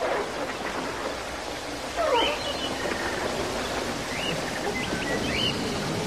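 A few short, high bird chirps, the first about two seconds in and more near the end, over a steady rushing noise.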